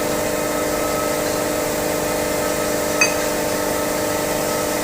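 Welding machine humming steadily with a constant electrical drone, with a single short click about three seconds in.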